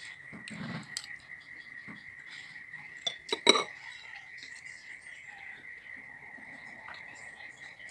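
A metal fork clinks against a ceramic bowl, a quick cluster of clinks about three and a half seconds in and lighter ticks elsewhere. A steady high-pitched whine runs throughout.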